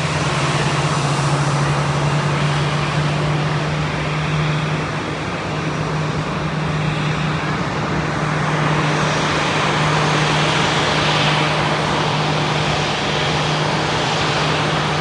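Aircraft engine noise: a steady low hum under a broad rushing roar, with the rush growing brighter about two-thirds of the way through.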